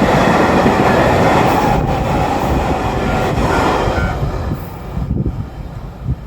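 JR Freight train behind an EF210 electric locomotive rolling through a level crossing, with a loud steady rumble of wheels on rail. The noise dies away over the last couple of seconds as the train passes.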